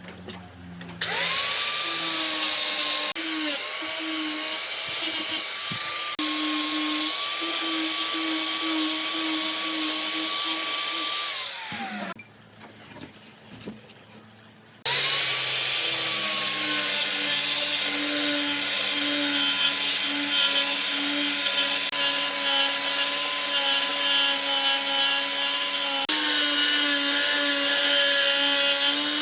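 Electric power tool motor spinning up to a steady high whine, winding down and stopping partway through, then starting again and running on.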